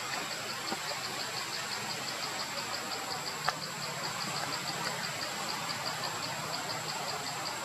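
Steady forest background: a high insect chirping pulsing about four times a second over a constant hiss, with a single sharp click about three and a half seconds in and a faint low hum in the middle.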